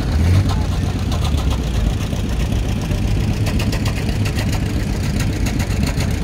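Vintage John Deere two-cylinder tractor engine running at low speed as it drives past, with a steady, even exhaust beat. It is loudest in the first second or two and then eases off.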